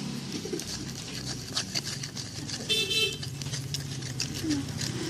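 Road traffic running in the background, with a short vehicle horn toot about three seconds in, over scattered small clicks and taps.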